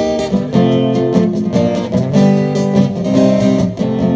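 Band music without vocals: a guitar strumming chords in a brisk marchinha rhythm, the chords changing every half-second or so.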